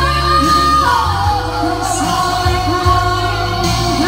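Live band playing a pop song, with female vocalists singing into microphones over electric guitar and a strong bass line. A long held vocal note slides down about a second in.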